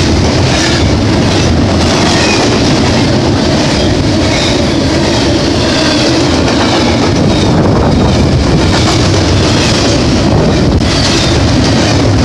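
Double-stack container train's well cars rolling past close by: loud, steady rumble and clatter of steel wheels on the rails.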